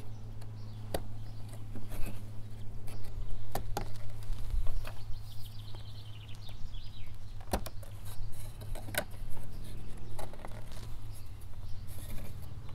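Light wooden clicks and knocks, a handful of sharp ticks spread out, as the thin wooden bottom rails of a Hoffman brood frame are pushed into the slotted side bars by hand, over a steady low hum. Faint bird chirps come in the middle.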